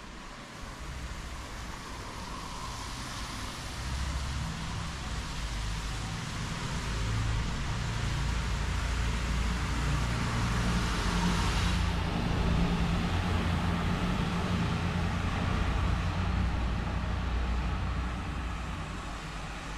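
Road traffic passing in the street: a motor vehicle's low engine rumble grows louder over several seconds and fades again near the end, with tyre hiss that cuts off about halfway through.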